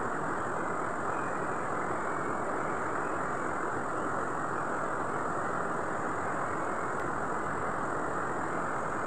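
River water rushing, a steady even roar with no change in level.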